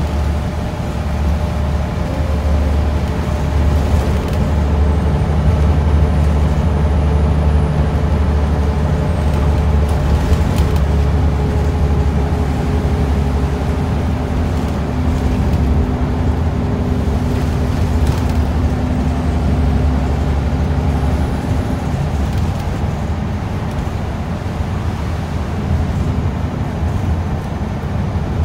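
Scania L94UB single-deck bus heard from inside the cabin while under way: a steady low engine drone whose tones shift in pitch with speed, over road and tyre noise. A couple of brief knocks of body rattle come through, about 10 and 18 seconds in.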